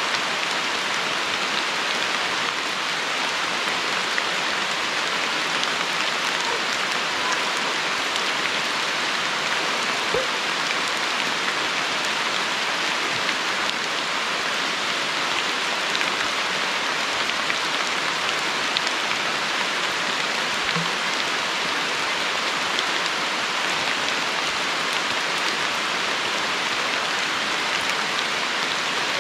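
Steady heavy rain falling, an even hiss that holds without a break.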